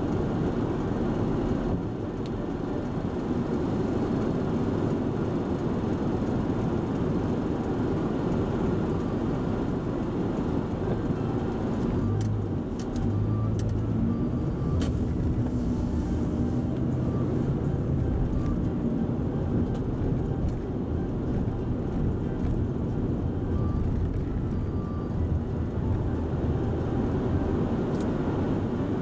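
Steady low rumble of a car, with a few light clicks and a faint hum about halfway through.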